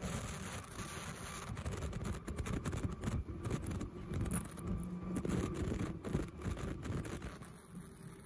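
Bouffant cap making machine running, a steady low hum under a busy clatter of irregular clicks and knocks from its moving parts, easing off near the end.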